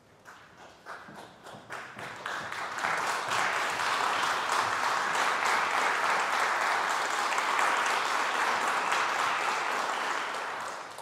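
Audience applause in a concert hall: a few scattered claps at first, swelling within about three seconds into full steady clapping, then dying away near the end.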